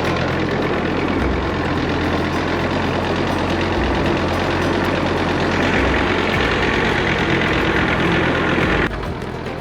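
A vehicle engine running steadily, dropping away abruptly near the end.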